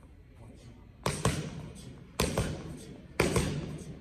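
Punches from boxing gloves smacking against focus mitts in a quick mitt-work drill: about five sharp hits starting about a second in, some in quick pairs, roughly a second apart, each with a short echo.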